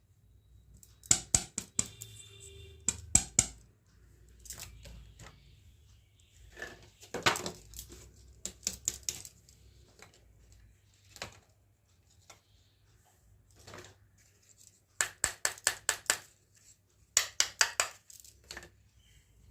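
Small plastic toy kitchen pieces clicking and clattering as they are handled and set down, in scattered taps with two quick runs of rapid clicks in the last few seconds.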